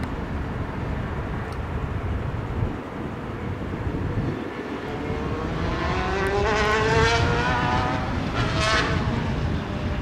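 BK117 helicopter flying away, mostly under a low wind rumble on the microphone. From about halfway an engine note rises steadily in pitch and becomes the loudest sound, with a second, sharper rise near the end, like an engine accelerating through a gear change.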